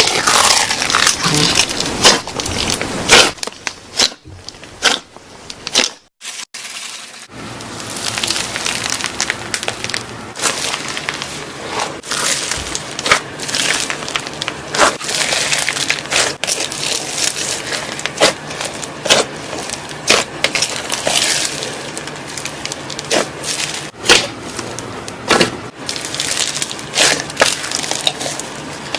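Crunchy slime being squeezed and pressed by hand: dense crackling and popping with sharper snaps throughout. It cuts out for about a second around six seconds in.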